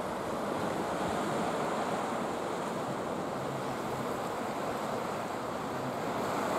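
Sea surf washing over a low, flat rock shelf, a steady wash with no single wave standing out, with some wind on the microphone.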